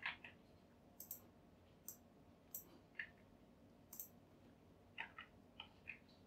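Faint, irregular clicks of a computer mouse and keyboard keys, about a dozen scattered short ticks over a quiet background.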